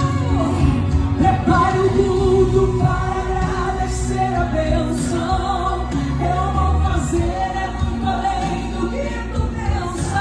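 Gospel song performed live, with sung vocal lines over a full instrumental accompaniment.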